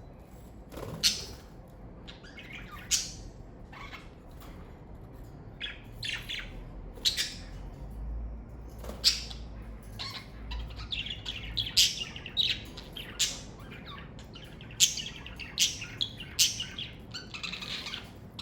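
Pet budgerigars chirping: short, sharp calls, a few at a time at first, then busier and overlapping in the second half.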